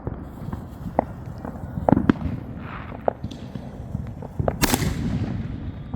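New Year fireworks going off: scattered sharp bangs and pops, with a loud burst of crackling a little past the middle.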